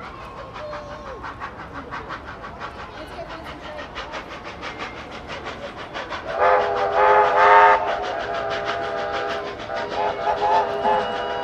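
A train's multi-note chime horn sounds about six seconds in, loudest for the first second and a half, then carries on more quietly with a few short toots near the end. Before and under it runs a fast, even, rhythmic mechanical beat.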